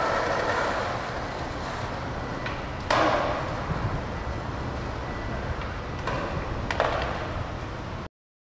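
Skateboard wheels rolling on rough asphalt with a steady rumble, broken by a sharp clack of the board about three seconds in and another about seven seconds in; the sound then cuts off suddenly.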